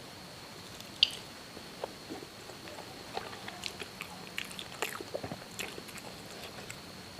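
Close-miked chewing and wet mouth smacks of someone eating siomay, the soft steamed fish dumplings and stuffed tofu, with a single sharp click about a second in.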